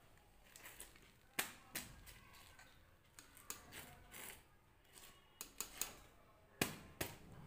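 Scattered light clicks and taps of kitchen handling, about eight of them, the sharpest near the end: a wire frying strainer lifted from a steel kadhai and crisp fried kachoris moved about on a wooden board.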